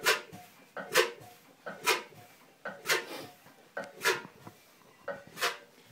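Crankcase scavenging on a hand-turned 1919 Ogle hot-bulb two-stroke semi-diesel with its cylinder head off. About once a second there is a light tap, then a short rush of air as the charge drawn in through the crankcase reed valves is compressed and blown out through the inlet port into the open bore. The steady puffs are a sign that the reed valves are working well.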